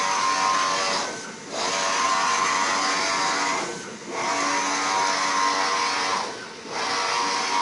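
Motor-driven machine running with a steady whine. The sound drops briefly and picks up again about every two and a half seconds, three times, in a regular working cycle.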